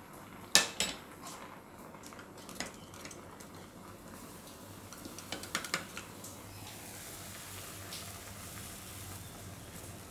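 A spoon tapping and scraping in a plastic cup of curd, giving a few sharp clicks: one pair about half a second in and a small cluster about five and a half seconds in.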